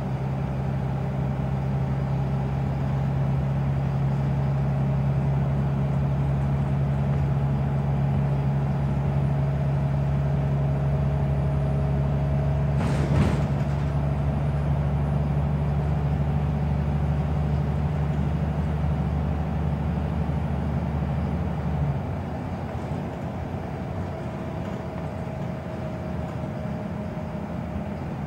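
Scania Wright Solar single-deck bus heard from inside the saloon while driving: a steady engine drone under road noise, with one brief knock about halfway through. About three-quarters of the way through, the engine drone drops away suddenly to a quieter note.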